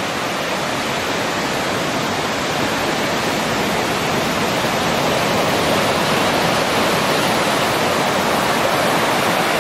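Ocean surf breaking on a beach: a steady, even rush of noise that grows a little louder about halfway through.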